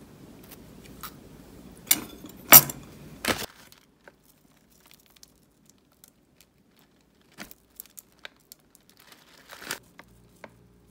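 Packaging crinkling and rustling as food is handled, with a few loud sharp crackles about two to three seconds in, then scattered light ticks and taps and one more short crackle near the end. A low steady hum sits under the first few seconds.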